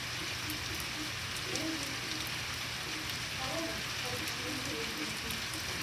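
Steady rain from a severe thunderstorm: an even hiss with scattered drop ticks.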